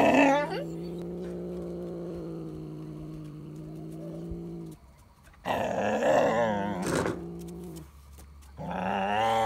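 Calico cat growling and yowling. A long, steady low growl lasts about four seconds, then loud wavering yowls rise and fall around the middle and again near the end: a cat's defensive threat display.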